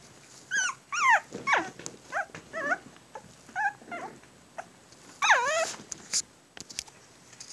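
Puppies yipping and squealing as they play-fight: a string of short, high calls that fall in pitch, with a louder, drawn-out squeal about five seconds in.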